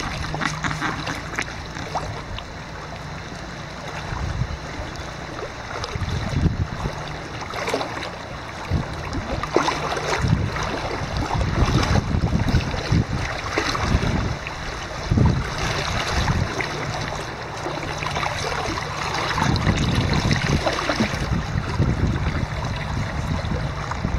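Shallow river running over a gravel and stone bed, a steady rushing wash, with wind buffeting the microphone in uneven low gusts.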